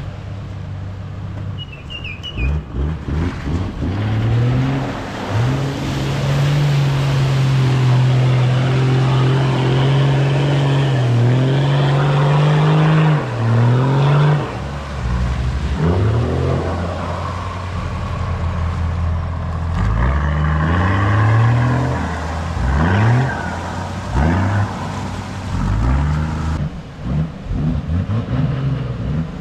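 Four-wheel-drive engine revving hard while driving through deep muddy water, with water and mud splashing. The revs climb and drop repeatedly and are held high for several seconds in the middle.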